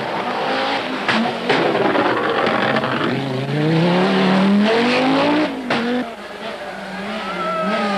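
Group B rally car engine driven hard on a special stage, revving up through the gears with the pitch climbing and dropping at each shift. Several sharp cracks cut through, about a second in and again near the middle.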